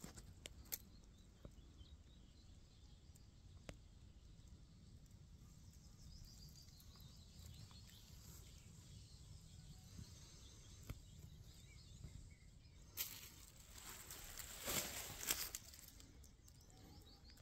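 Near-silent woodland ambience with a faint low rumble and faint bird calls. About thirteen seconds in come a few seconds of rustling and scuffing in dry leaf litter.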